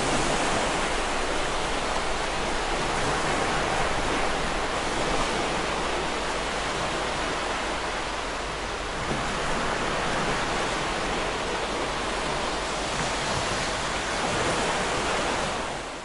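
Ocean surf breaking on a beach: a steady rushing wash of water that slowly swells and eases, fading out at the very end.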